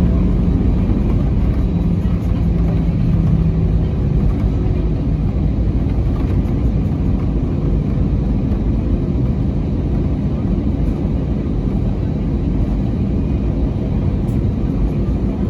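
Landing aircraft: a steady low rumble, with a humming tone that fades out over the first few seconds.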